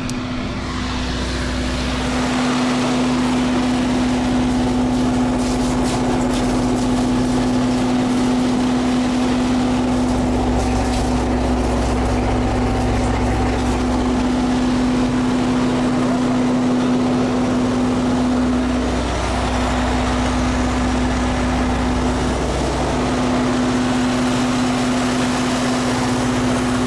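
Tractor running steadily outdoors, a constant mechanical hum over a steady rumble.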